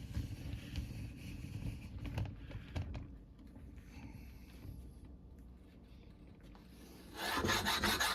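Low handling noise and a few knocks as a metal bar is shifted, then, near the end, a sharpening stone starts rubbing back and forth on the bar's rusty, pitted chrome in quick strokes, about four a second, to grind down the rust blisters.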